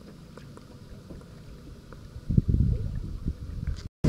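Low, irregular rumbling on a handheld camera's microphone, heavy for about a second and a half past the middle over faint background noise. It cuts off abruptly just before the end.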